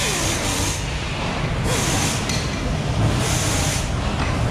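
Motor assembly-line floor noise: three short hisses of compressed air, about a second and a half apart, over a steady low hum.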